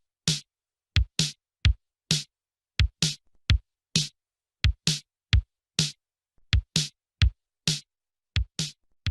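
Electronic music with a sparse drum-machine beat: deep kick-drum thumps alternating with sharp snare hits, about two to three a second, with dead silence between them.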